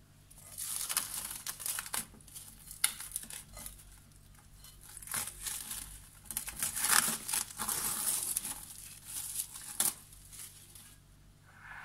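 Plastic cling film being peeled off the rim of a glass bowl and crumpled in the hand, crinkling in irregular bursts with sharp crackles, in two main spells, the second and louder one from about five seconds in.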